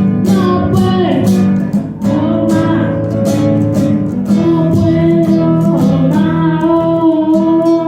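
Music led by a plucked guitar, with a steady run of picked notes.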